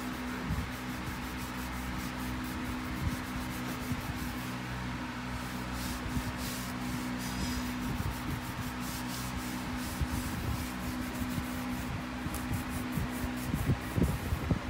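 A microfiber cloth rubbing back and forth over a wood-look floor, scrubbing off dried paint spatters, with the strokes getting sharper and louder near the end. Background music plays under it.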